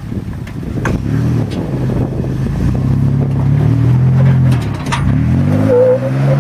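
Toyota 4Runner's engine revving under load as it climbs a steep dirt bank. The revs rise, hold, dip briefly and climb again near the end, with a few sharp knocks along the way.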